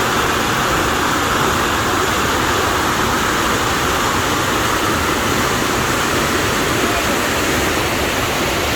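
Waterfall pouring, a loud steady rush of water.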